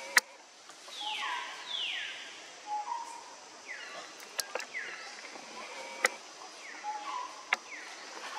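Wild animal calls in the trees: repeated falling calls, each sliding down from high to lower pitch in about a third of a second and mostly coming in pairs, with short steady notes between them and a few sharp clicks.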